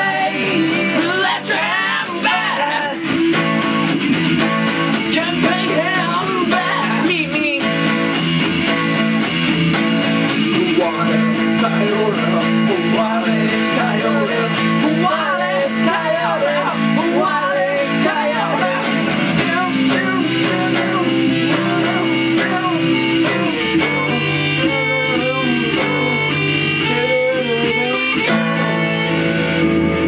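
An electric guitar playing a wavering lead line over an acoustic guitar's chords, in a live blues-rock style duet.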